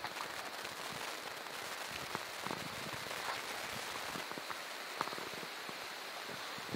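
Light rain falling on pond water: a steady hiss of many small drop ticks, with a couple of sharper clicks about two and a half and five seconds in.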